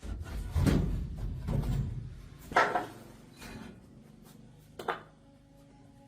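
Irregular knocks and clunks of hard objects being handled, with a low rumble in the first two seconds. The sharpest knocks come about two and a half seconds in and just before five seconds.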